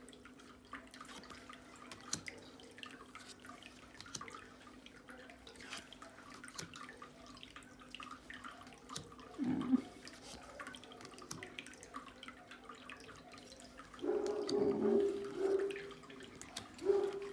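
Tarot cards being handled and flipped through: light, irregular clicks and snaps of card stock over a faint steady hum. A short hummed vocal sound comes near the end.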